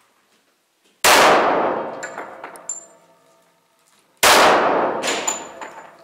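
Two pistol shots from a Glock 41 in .45 ACP, about three seconds apart, fired slowly and aimed. Each shot has a long echoing decay.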